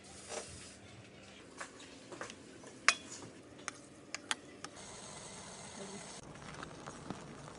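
Scattered light clinks and knocks of kitchen utensils and dishes, the sharpest about three seconds in, with a faint high steady whine for a second and a half around the middle.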